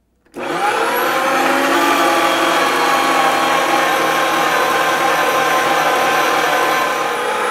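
Electric meat grinder switched on about a third of a second in. Its motor whines up to speed, then runs steadily while grinding a cheese-laced meat blend a second time.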